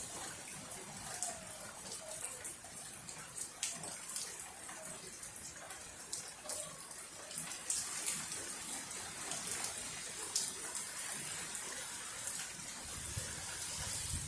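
Water running steadily, with scattered small splashes and drips.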